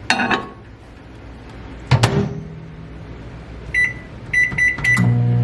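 Microwave oven being used to heat water: a clunk at the start and a sharp door click about two seconds in, then about five short keypad beeps, and the oven starts running with a loud low hum near the end.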